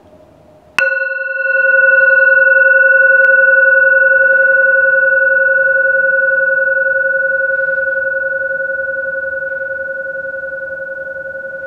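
Hammered metal singing bowl held on the palm, struck once with a wooden mallet about a second in, then ringing on one steady note with higher overtones and a slight pulsing, slowly fading. Always gentle, always the same note.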